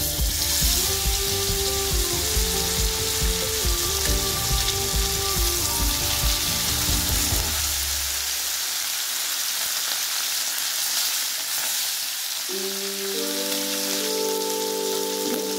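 Marinated fish steaks shallow-frying in hot oil in an iron kadai, sizzling steadily.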